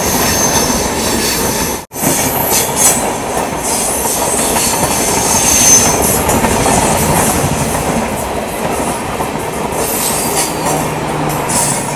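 Indian Railways passenger coaches rolling past close by on the adjacent track, wheels clattering over the rail joints with a few high-pitched wheel squeals. The sound breaks off for a moment about two seconds in. A steady low hum comes in near the end.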